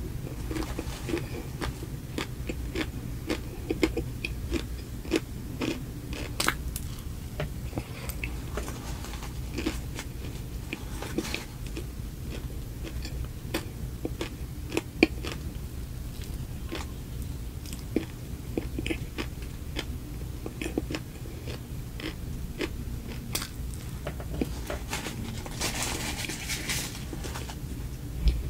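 Close-miked chewing of a soft frosted cupcake: wet mouth clicks and smacks in an irregular stream, over a steady low hum.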